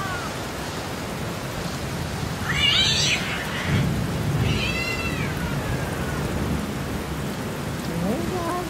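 Steady rain, with a rumble of thunder about four seconds in. A cat meows twice, around three and five seconds in, and another cat call rises near the end.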